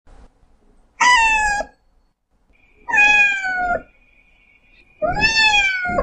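Newborn kittens mewing: three high, thin cries about two seconds apart, each just under a second long and sliding slightly down in pitch.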